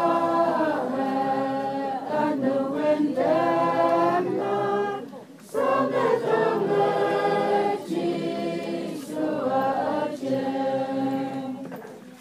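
A choir singing sustained, gliding phrases, with a short break about five seconds in. It fades out near the end.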